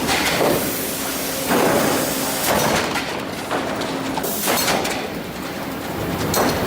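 Sawmill production-line noise: boards clattering and knocking against each other and the machinery, with repeated sharp bangs over a steady mill din, echoing in a large hall.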